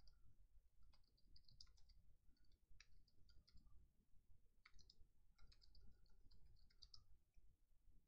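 Faint computer keyboard typing: several short runs of quick keystrokes over a low background rumble.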